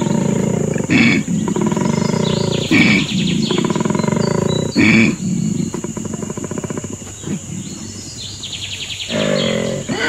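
Koala bellowing: a deep, rasping, snore-like call in repeated cycles of drawn-in and pushed-out breaths. It grows weaker from about halfway and stronger again near the end.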